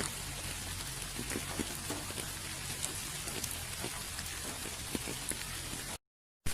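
Steady rain falling: a dense hiss with individual drops ticking on a surface. Near the end it cuts out completely for about half a second and comes back with a click.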